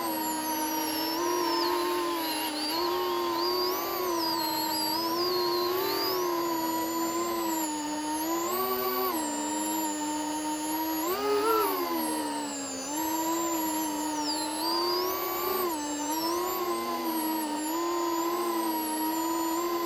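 FPV quadcopter's electric motors and propellers whining, heard from the drone's onboard recorder, the pitch rising and falling with the throttle and jumping sharply up about eleven seconds in.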